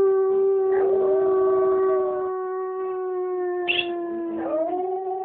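Dog howling: one long howl, held steady and slowly sinking in pitch, breaks off about four and a half seconds in, and a second howl starts right after.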